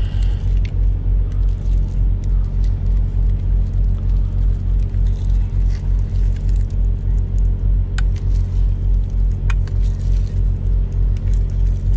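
Diesel truck engine idling with a steady, pulsing low drone, heard from inside the cab. A couple of light clicks of a fork against the glass baking dish come near the end.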